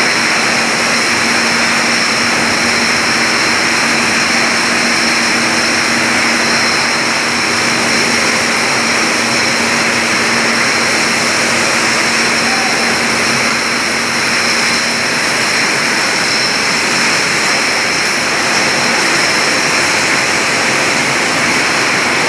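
Steady, loud machinery din of a glass-bottle juice filling and capping line, with several steady whining tones over it; a faint high whine joins about halfway through.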